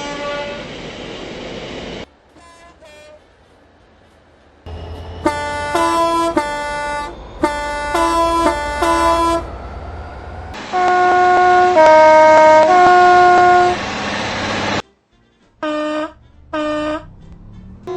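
A run of train horn blasts from different clips cut together: short and long blasts, several changing between two pitches in turn. A low engine rumble sits under the blasts in the middle.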